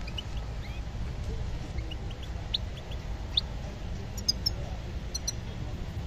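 Caged songbirds chirping: scattered short, high chirps and quick rising calls, a few every second, over a steady low rumble.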